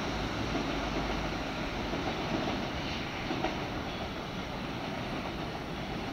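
500 Series Shinkansen pulling away, its running noise slowly fading as the train draws off into the distance.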